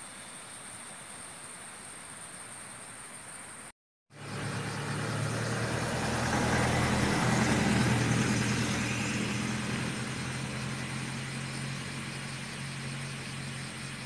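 A faint steady hiss, then after a brief silent gap about four seconds in, a motor vehicle's engine hum that swells to its loudest around the middle and slowly fades, as of a vehicle passing.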